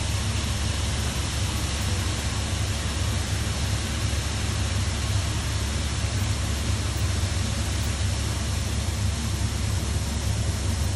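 Shelled corn pouring from a grain trailer's hopper gate onto a grated receiving pit: a steady hiss like rain. Under it runs a steady deep hum of machinery.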